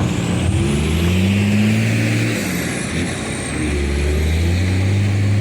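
Komatsu PC200 hydraulic excavator's diesel engine working under digging load, its pitch rising and falling as the hydraulics load it, with a dip about three seconds in.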